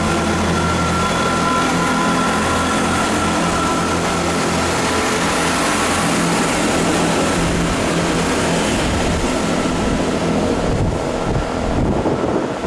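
Class 166 Turbo diesel multiple unit running past and away along the platform. Its diesel engines hum steadily with a high whine, over wheel and rail noise. The engine sound fades near the end.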